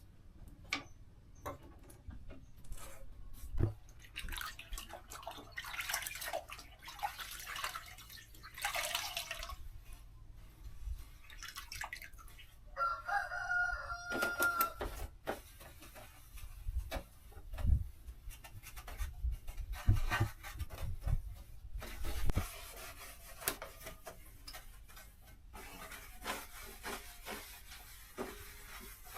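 Scattered knocks, clatter and scraping from hand work, with one drawn-out animal call lasting about a second and a half near the middle.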